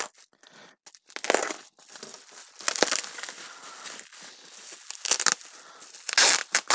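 Bubble wrap crinkling and rustling as it is pulled open by hand, in irregular bursts, a few of them louder rips.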